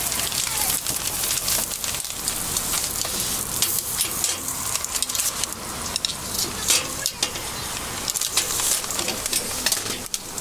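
Batter sizzling in hot cast-iron fish-shaped bungeoppang molds, with many short clicks and knocks as the hinged iron molds are handled.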